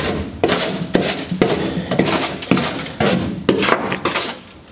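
A hammer striking a car's sheet-steel floor pan, bashing dents back down into shape: a series of sharp metallic knocks, about two to three a second and slightly irregular.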